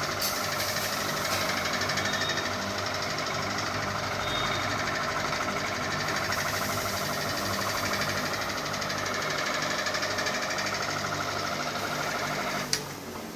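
Ceiling fan running with a fast, steady rattling knock. A sharp click comes near the end, after which the sound drops and begins to fade.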